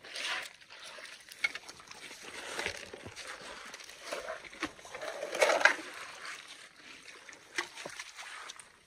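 Water sloshing and splashing as a blue sluice carpet is dipped, rolled and shaken in a gold pan of muddy water, washing the gold-bearing concentrate off the carpet. The sound is uneven, with a louder brief burst about five and a half seconds in.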